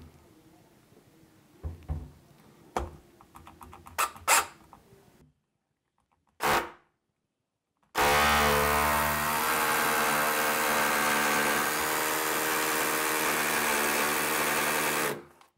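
Worx WX390.9 cordless SDS hammer drill boring a 6 mm pilot hole in hammer mode through plaster into very hard old brick. It starts abruptly about eight seconds in, runs steadily for about seven seconds and then stops, after a few light clicks.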